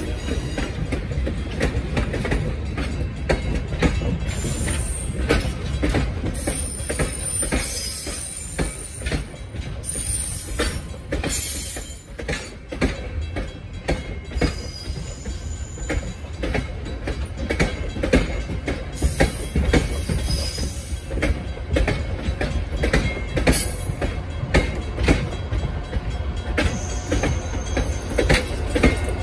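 Passenger train hauled by steam locomotive Pere Marquette 1225 rolling by: a steady low rumble with a dense run of steel wheel clicks and knocks over the rail joints. Brief high wheel squeals come through several times.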